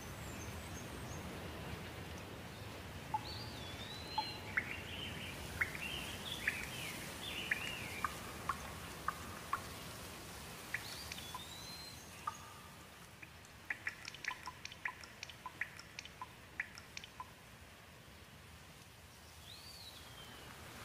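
Wild birds calling over a steady background hiss. A clear whistle that swoops up and down comes three times, scattered chirps fill the first half, and a quick run of sharp, short notes follows in the middle.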